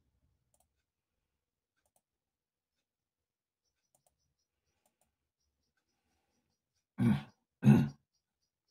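Near silence, broken near the end by two short, loud noises about half a second apart.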